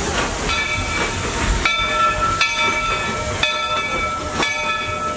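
Narrow-gauge steam locomotive of the Walt Disney World Railroad hissing steam as it pulls into the station, with a ringing bell struck about once a second from about half a second in.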